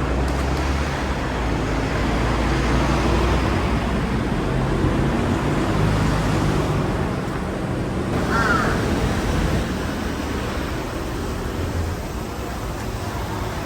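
Road traffic running by, a steady rumble of passing vehicles, with a brief warbling call about eight seconds in.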